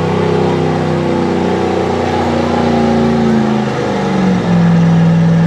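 Gasoline Dodge Ram pickup's engine at full throttle, pulling a weight-transfer sled. Its pitch sags slowly as the sled's load builds, then holds steady and a little louder near the end.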